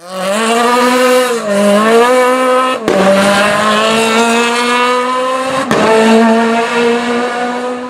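Racing car engine held at high revs, its note dipping briefly and climbing back, then broken twice by a sudden crack about three seconds apart before picking up again; it fades out at the end.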